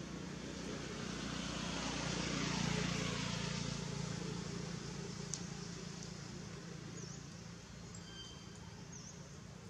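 A motor vehicle driving past: engine hum and tyre noise swell to a peak about three seconds in, drop in pitch, and fade away. A few faint bird chirps come near the end.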